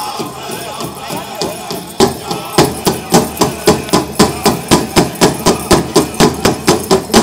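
Pow wow drum group singing over the big drum, then from about two seconds in the drum is struck hard and steadily, about four beats a second, under the song, stopping suddenly near the end as the song closes.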